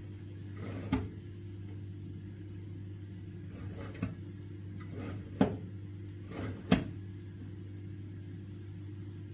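A few sharp knocks and clicks, the loudest about five and a half and almost seven seconds in, over a steady low hum.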